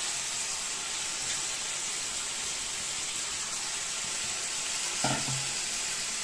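Steady hiss from a stainless steel pot of salted water heating on a gas burner, not yet at the boil. A short pitched sound comes about five seconds in.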